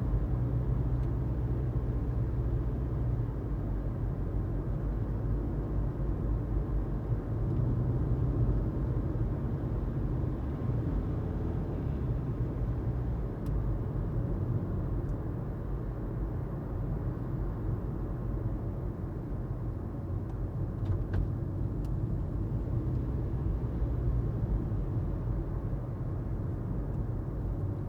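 A car driving on a road: steady low engine and tyre rumble.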